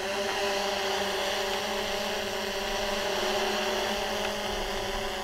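Small DJI Mavic quadcopter hovering about 10 m overhead: a steady propeller hum with a high hiss above it.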